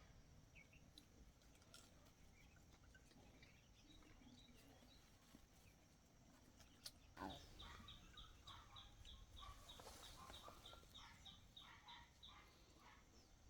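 Near silence with faint rural ambience. About halfway through, a run of short high chirps starts, about three a second for some five seconds, with scattered fainter calls underneath.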